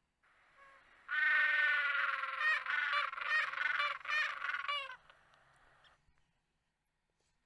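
A Humboldt penguin braying in its ecstatic display call, starting about a second in. One call lasting about four seconds, long drawn notes that break into a quick run of short pulses before it stops.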